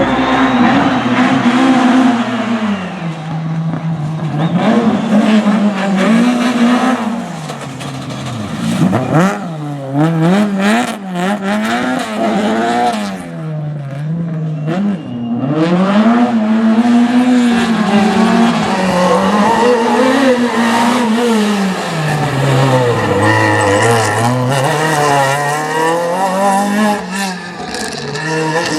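Rally car engine driven hard, its pitch repeatedly climbing under full throttle and dropping back at each gear change or lift.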